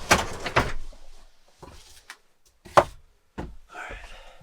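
Knocks and clatter of cooking gear and cabinet doors being handled in a small van kitchen: a cluster of knocks in the first second, a single sharp knock near the middle, then a softer rustle.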